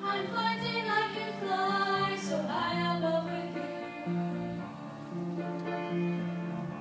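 A Christmas carol sung with instrumental accompaniment: sustained notes, with a sliding vocal phrase about two seconds in.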